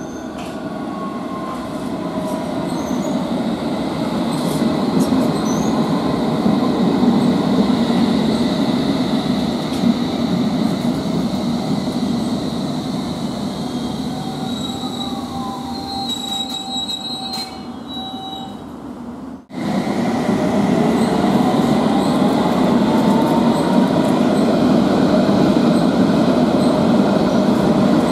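London Underground S8 Stock train running on the track beside the platform. Its traction motors whine down in pitch as it slows, with high wheel squeal and clicks near the stop. After a break the motor whine climbs in pitch as a train gathers speed.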